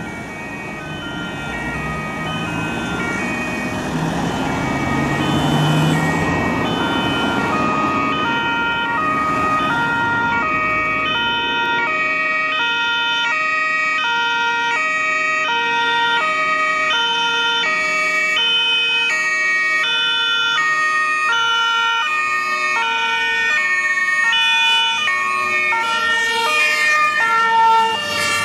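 Two-tone sirens (Martinshorn) of several German fire engines sound together, their alternating high and low notes overlapping out of step, over the rumble of the trucks' engines as they drive past. The sirens grow louder over the first few seconds.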